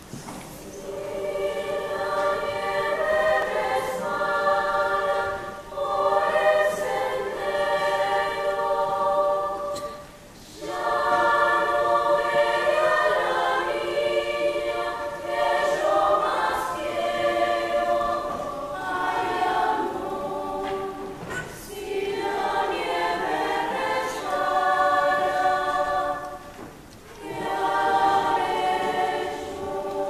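Children's and youth choir singing in several parts, held notes moving together in long phrases, with short pauses for breath about ten seconds in and again near the end.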